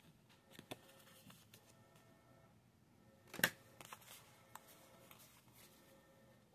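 Risk Strike playing cards being thumbed through and slid off the deck by hand: soft card slides and flicks, with one sharper click about three and a half seconds in.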